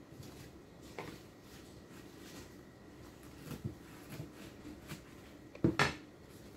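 Soft knocks and taps of a kitchen knife and a foam plate on a table as a fried burger patty is cut, with the loudest double knock near the end.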